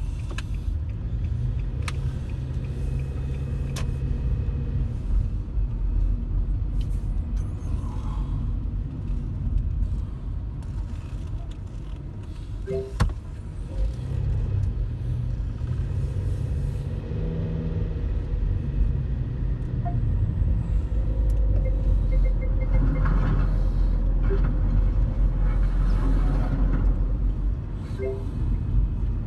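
Car driving along a road: a steady low rumble of engine and tyres heard from the moving car.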